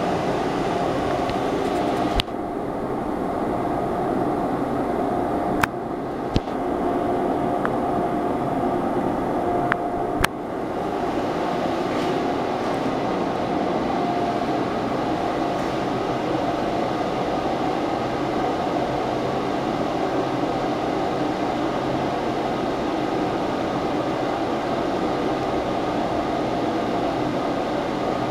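Ceiling exhaust fan running: a steady rushing hum with a faint held tone. A few sharp clicks come in the first ten seconds.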